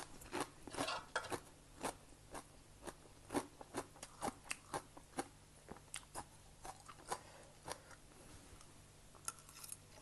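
A person chewing a mouthful of crunchy raw vegetable close to the microphone: soft, irregular crunches about two or three a second, thinning out later on. There is a quick run of light clicks near the end.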